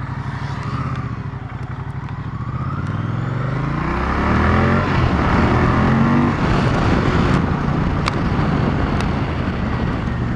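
Moto Guzzi V100 Mandello's 1042 cc liquid-cooled 90° V-twin pulling away from low revs: the revs climb, drop back at an upshift about five seconds in, and climb again. A rushing noise builds as the bike gathers speed.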